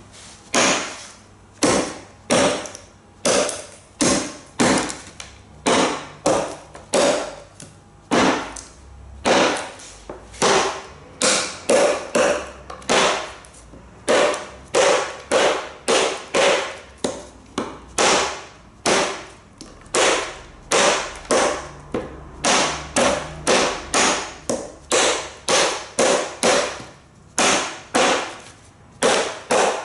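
Toyokuni nata hatchet with a 5-inch chisel-ground blade chopping into wood: repeated sharp chopping strikes at about two a second, with a few short pauses.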